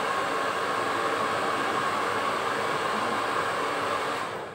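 Hair dryer running with a steady blowing rush, which dies away near the end.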